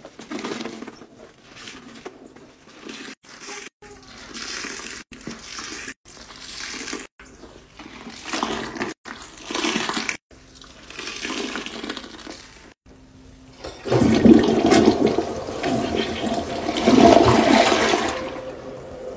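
Water sloshing and splashing in a toilet bowl in short bursts cut together one after another, then a toilet flushing in the last five seconds, the loudest part.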